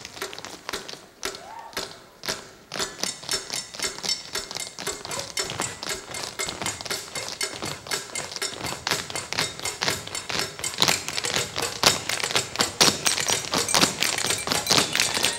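Unaccompanied tap break from a troupe of tap dancers, many tap shoes striking the stage floor together. A rapid rhythmic run of sharp clicks, sparse and quieter for the first couple of seconds, then denser and louder toward the end.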